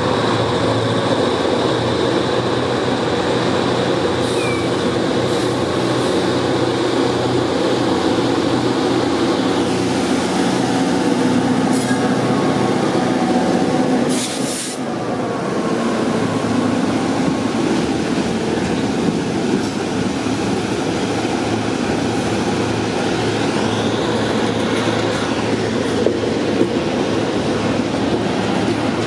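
Two EMD GP35R diesel locomotives with turbocharged EMD 567 engines screaming as they pull hard in unison under a heavy load. They pass about halfway through, and the loaded rail cars roll by behind them.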